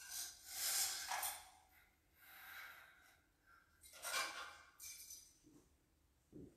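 Faint rustling and handling noises in three short bursts, with a light clink, as things are handled at a small side table, and a soft low thud near the end.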